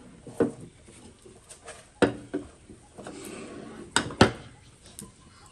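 Tableware being handled: a ceramic bowl and metal utensils knocking and clinking on a wooden table, several sharp knocks with a short ring.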